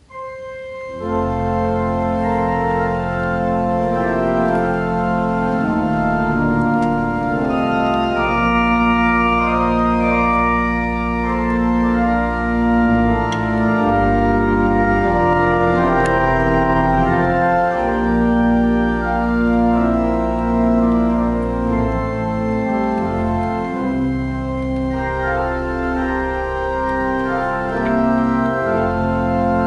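Church organ playing slow sustained chords over a deep, held bass line, starting about a second in after a brief quiet.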